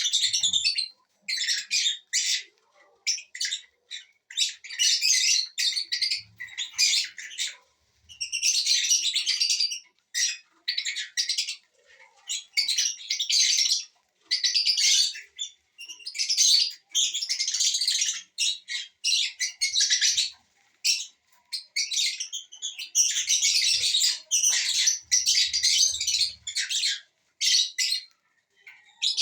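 A flock of small parrots (lovebirds, with cockatiels and Indian ringneck parakeets) chattering and squawking in dense, high-pitched bursts of a second or two, separated by short pauses.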